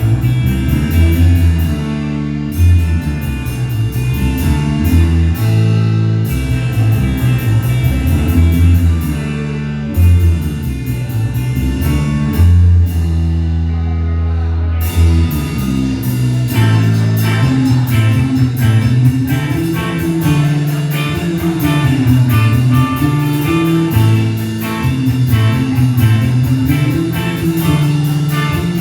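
Rock band playing live in an instrumental passage: electric guitar, bass and drums. About halfway through the music fills out into a busier section with a steady drum beat under a guitar riff.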